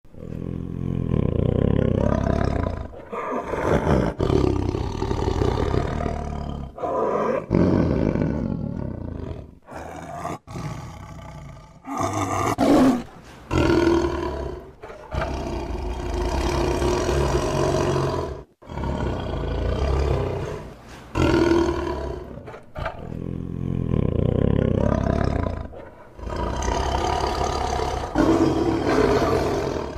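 Tiger roaring and growling: a string of long, deep calls a few seconds each, cut one after another with abrupt breaks between them.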